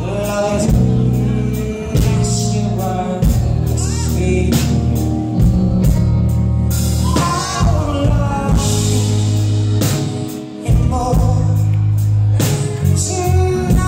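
Live rock band playing: a woman singing over piano, electric bass and a drum kit, with steady drum hits and sustained bass notes under the vocal line.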